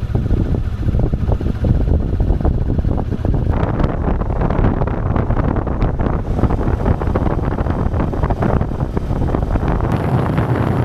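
Wind buffeting the microphone of a camera mounted on a moving motorcycle, with the bike's running and road noise underneath. The rushing noise grows fuller about three and a half seconds in.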